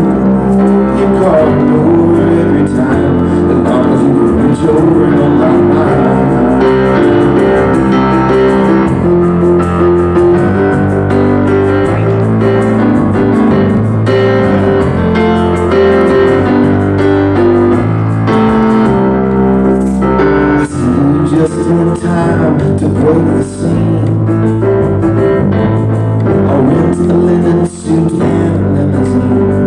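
Live band playing a song: a stage keyboard in a piano sound carries the chords, with drums and guitars behind it.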